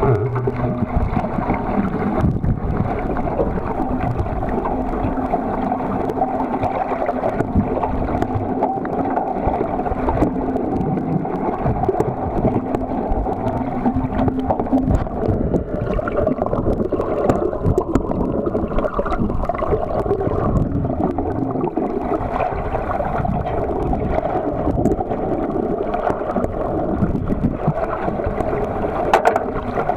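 Underwater noise from a camera submerged in the sea: a steady, dense rushing and gurgling of moving water, with a steady low hum through roughly the first half.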